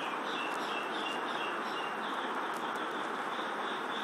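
A bird chirping repeatedly in short, high notes, about three or four a second, over a steady background hiss.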